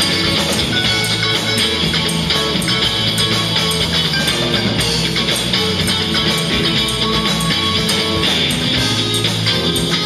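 Live band music: a solid-body electric guitar playing over a drum kit that keeps a steady beat on the cymbals, with a bass line underneath.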